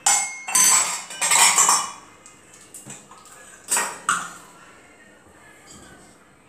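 Stainless-steel kitchen vessels clanking and clinking as they are handled and a small steel bowl is set down inside a pressure cooker pot. There are several ringing clanks in the first two seconds and two sharp knocks near four seconds.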